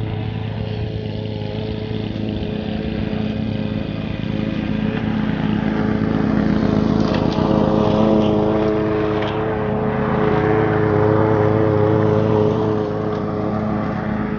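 Walk-behind gas lawn mower engine running steadily while mowing. It grows louder in the middle as the mower passes close by and eases off near the end as it moves away.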